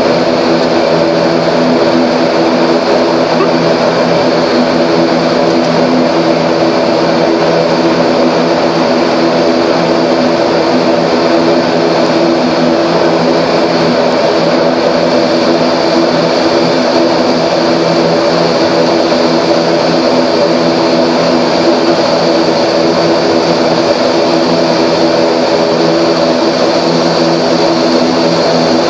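ATR 42 twin turboprop engines and propellers running with a steady, even hum, heard from inside the cockpit as the aircraft rolls along the runway.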